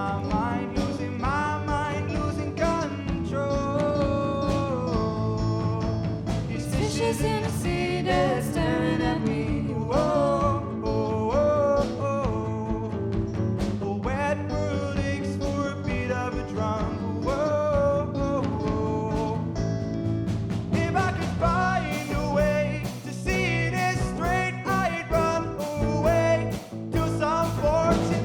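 A song: a sung melody over a band with a steady beat, the accompaniment getting busier with more drum hits in the last few seconds.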